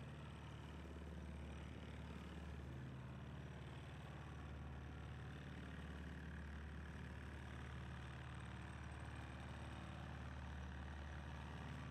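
A sailboat's inboard engine running steadily at low revs, a constant low hum.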